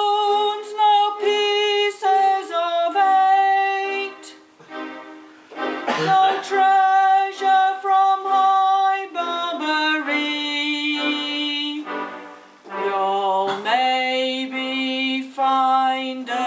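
A woman singing a slow melody in long held notes, with electronic keyboard accompaniment, in a low-fidelity live recording.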